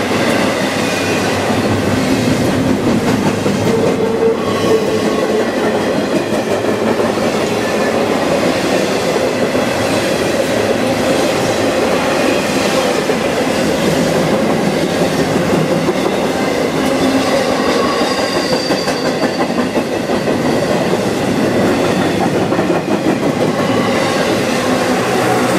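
Norfolk Southern intermodal freight train's double-stack well cars and trailer flatcars rolling past, a loud steady rumble of steel wheels on rail with clickety-clack over the rail joints.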